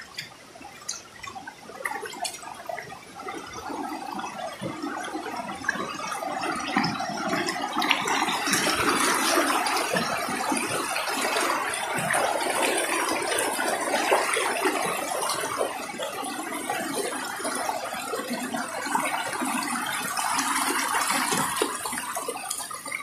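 Stream water running and splashing over rocks. It grows louder over the first several seconds, then holds steady, with a few light clicks near the start.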